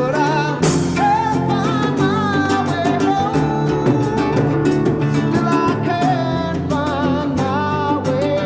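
Background song: a sung melody over strummed guitar and drums with a steady beat.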